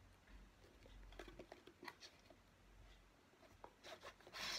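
Faint handling of a cardboard DVD box set: light taps and rustles as it is turned in the hands, with a brief louder rustle near the end.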